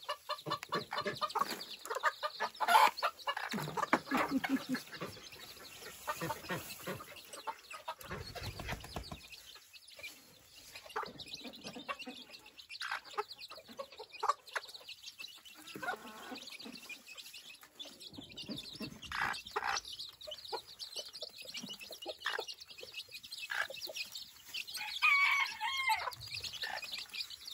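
Bantam hen clucking to her brood while her chicks peep continually in short high chirps. There is a brief low rumble about eight seconds in.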